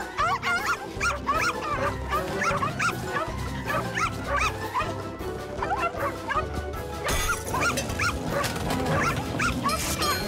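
Cartoon puppies yipping and barking in many short, high calls, several a second, over background music.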